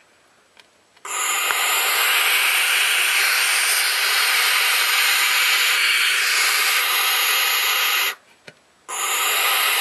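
Barn owl chicks hissing their long, rasping snore call: near silence for the first second, then one long hiss of about seven seconds, a short break near the end, and the hissing starts again.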